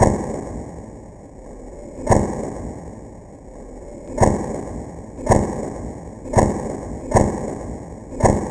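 Seven deep, sudden thuds at uneven intervals, each fading slowly.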